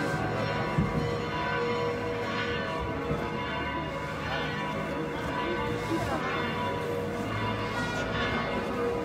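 Church bells ringing continuously, several bells with many overlapping held tones, over the chatter of voices.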